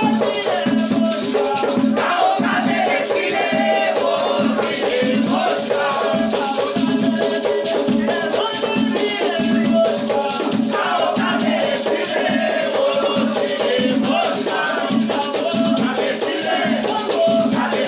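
Afro-Brazilian Batuque ritual music: shakers rattling over a steady drum beat, with voices singing.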